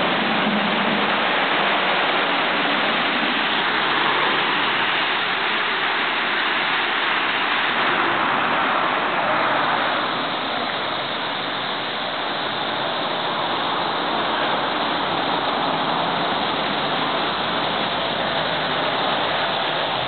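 Automatic tunnel car wash spraying a car: a steady hiss of water jets with water splashing onto the car and the wet floor, changing slightly in tone about halfway through.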